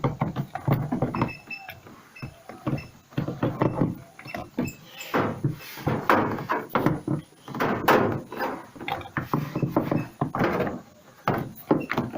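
Irregular clunks, clicks and scrapes of washing-machine drive parts being handled and pulled apart by hand, with a longer scraping stretch about five seconds in.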